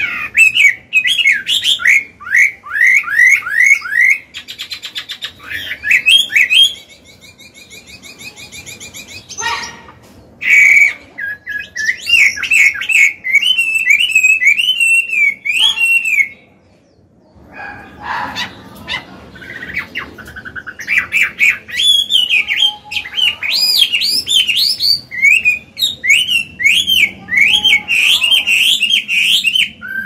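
Chinese hwamei singing a loud, varied song of rapidly repeated slurred whistles, with a stretch of fast high trills. The song stops briefly about halfway through, then resumes.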